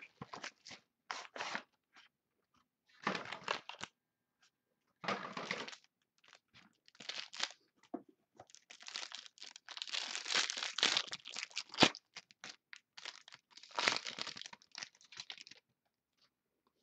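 A sealed trading-card box and its wrapping being torn open by hand: irregular spells of tearing and crinkling with short pauses between them, and a sharp click about twelve seconds in.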